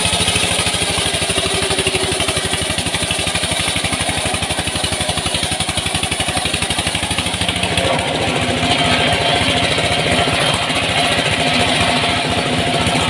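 Small engine driving a wood saw cutting sengon timber, running steadily with a fast low pulse; its note changes about eight seconds in.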